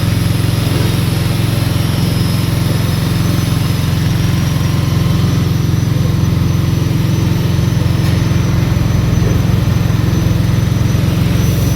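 MAR-C A200 coconut-milk press machine running steadily with a continuous engine drone as it presses grated coconut.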